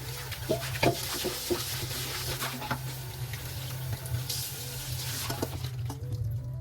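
Tap water running into a sink, with a few light clinks and knocks of dishes; the water is turned off near the end.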